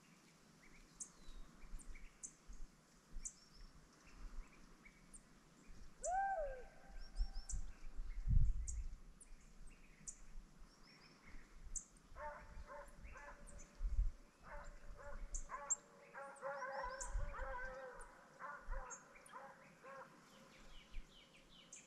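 Hunting dogs baying faintly in the distance: one drawn-out bay about six seconds in, then a run of repeated barks and bays from about twelve to twenty seconds in. Small birds chirp throughout, and a few low thumps hit the microphone.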